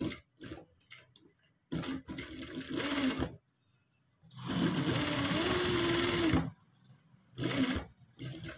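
Sewing machine stitching a sleeve seam through chiffon in stop-start runs: a few light clicks, then a run of about a second and a half, a longer steady run in the middle, and a brief spurt near the end.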